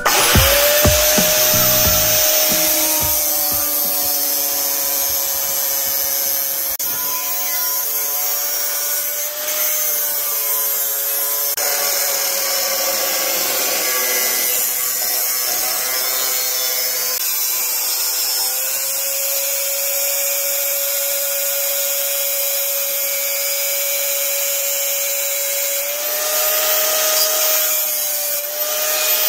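Angle grinder with a thin cut-off disc cutting through a steel saw blade: a steady motor whine under a loud hissing grind of disc on steel, the pitch sagging slightly a few times as the disc bites.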